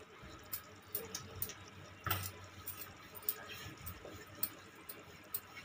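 Wooden rolling pin rolling out bhatura dough on a work surface: faint, irregular light clicks and taps, one a little louder about two seconds in.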